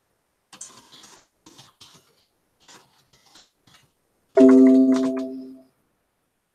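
A piano-like chime sounds about four seconds in: several notes struck together, loud at the start and dying away over about a second. Before it come a few soft rustles and taps.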